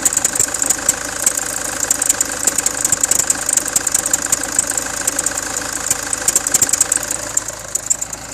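Land Rover Freelander 2 running at idle with an extraneous rapid ticking rattle over the engine, which the owner places around the power steering and drives.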